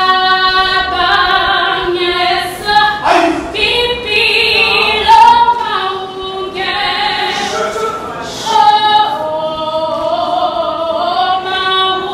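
Gospel choir singing, led by a woman soloist in long held notes that slide between pitches, with no instruments standing out.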